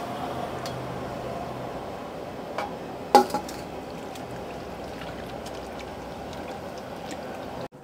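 Water splashing and sloshing as coriander, green chillies, ginger and garlic are washed by hand in a vessel, with a few clinks against the vessel, the loudest about three seconds in. The sound stops abruptly near the end.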